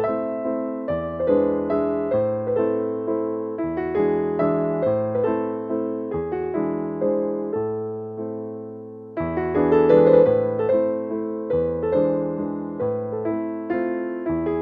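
Background piano music: a slow melody over chords, dipping softer a little past halfway and then coming back in louder.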